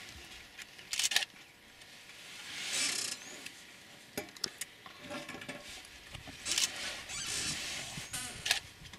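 Rustling and scraping close to the microphone, with a few sharp clicks and two short swells of hiss.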